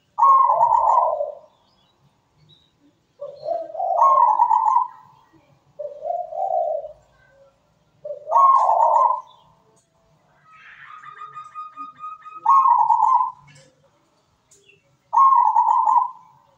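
Zebra dove (perkutut) singing its rhythmic cooing song: six loud cooing phrases, one every two to three seconds, with a fainter drawn-out higher note between two of them.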